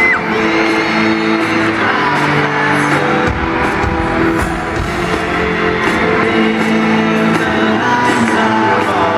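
Live pop band music with singing, recorded from the seats of an arena.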